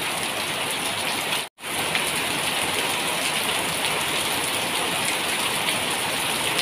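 Coconut-milk curry simmering in a pot, a steady bubbling hiss. It cuts out abruptly for a moment about one and a half seconds in.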